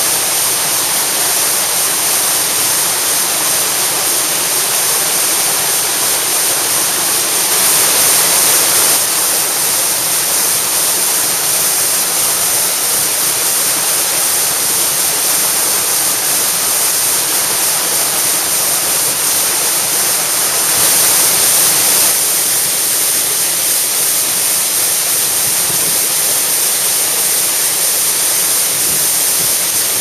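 Waterfall in spate, swollen after a typhoon, heard close up: a steady, loud rush of falling water that swells briefly twice.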